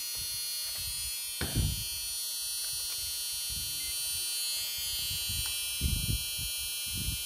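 H-bridge inverter board with 12 MOSFETs running continuously under a bench test, giving a steady high-pitched electrical buzz. A few brief low knocks come about a second and a half in and near the end.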